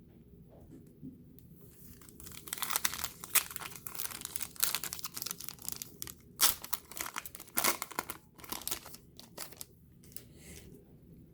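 Wrapper of a trading card pack being torn open and crinkled: a run of sharp crackles starting about a second and a half in and dying away near the end.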